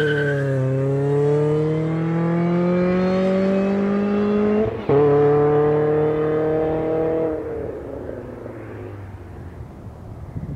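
Supercharged 2.0 L four-cylinder of a Chevrolet Cobalt SS running through a catless downpipe and 3-inch exhaust, accelerating hard. Revs climb steadily, drop sharply at a quick upshift about five seconds in, and climb again. Then the engine note falls away and fades out.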